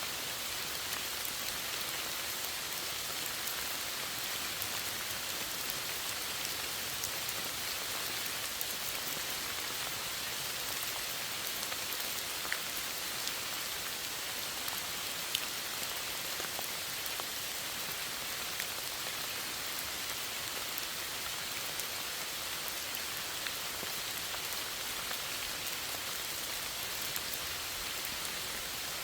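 Steady rain falling, an even hiss with scattered single drop ticks.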